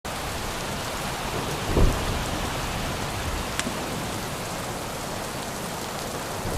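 Steady heavy rainfall starting suddenly, with a short low rumble of thunder about two seconds in and a few sharp drip ticks later.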